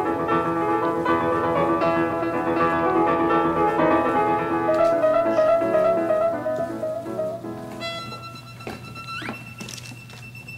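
Instrumental background music that fades down about eight seconds in, followed by a few steady high tones that glide upward in pitch near the end.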